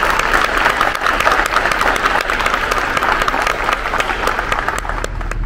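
An audience applauding, a dense patter of many hands clapping that thins out near the end.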